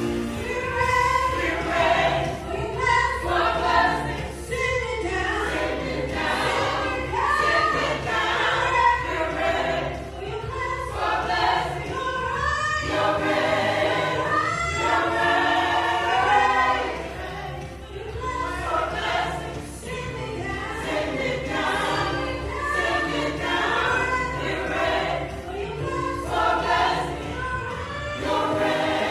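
A choir singing a gospel song together, voices held in long, wavering sung lines throughout, over a steady low undertone.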